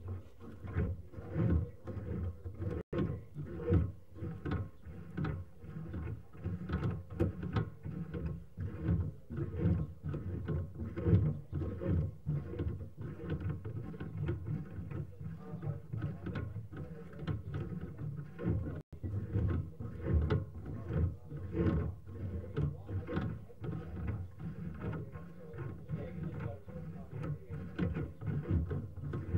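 Sewer inspection camera being pushed down the drain line: a steady run of irregular low knocks, rubbing and clatter as the camera head and push cable travel along the pipe.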